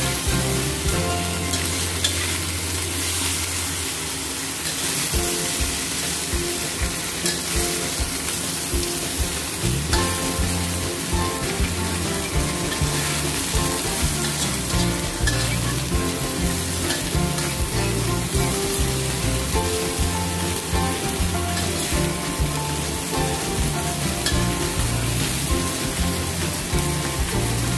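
Small whole fish with ginger frying in oil in a wok, sizzling steadily while a metal spatula stirs and turns them.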